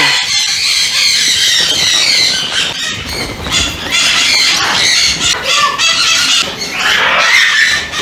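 A flock of parrots screeching and squawking at once, a continuous high-pitched din of many overlapping calls.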